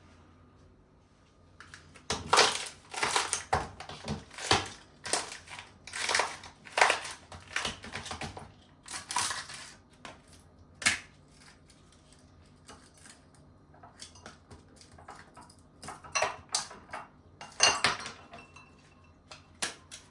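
Kitchen work with utensils and dishes: a series of rough scraping, crunching strokes, dense for several seconds, then sparser, with another burst near the end.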